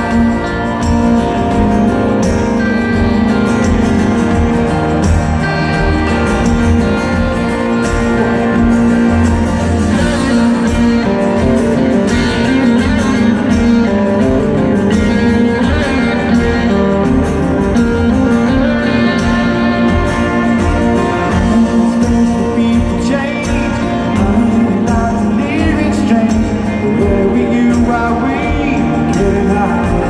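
A live rock band plays through a stadium PA, heard from the crowd: guitars and drums, with a man singing over them.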